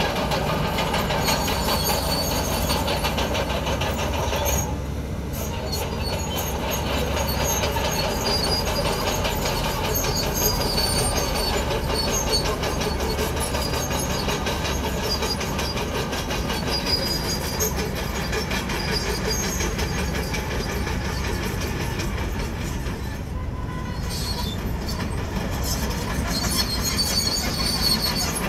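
Komatsu crawler bulldozer working: diesel engine running under a steady clatter and squeal of its steel tracks, easing briefly twice.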